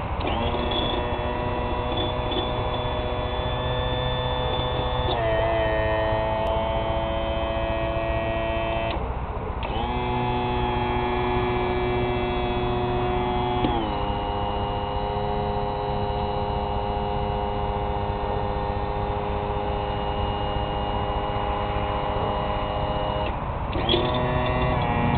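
Electric motor of an outboard's power trim and tilt unit running with a steady hum as it raises the outboard and lowers it again. It stops briefly about nine seconds in, and its pitch shifts a few times as the load on the pump changes.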